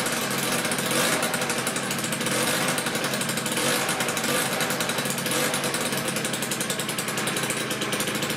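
Minarelli two-stroke scooter engine running steadily, freshly rebuilt after a piston seizure and burning off its assembly oil. The exhaust leaks at the header's weld seam.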